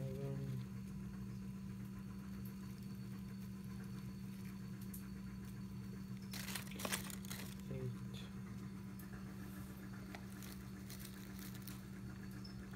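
Dry leaves crinkling and rustling as they are handled, with a loud cluster of crackles about six and a half seconds in, over a steady low electrical hum.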